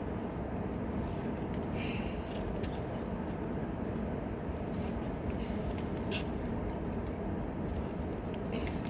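Steady low outdoor rumble with a few faint, short clicks scattered through it.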